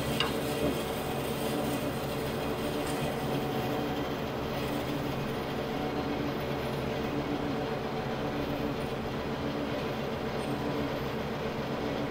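Bandsaw fitted with an aluminium-cutting blade running steadily while a length of aluminium angle is fed along the table toward the blade.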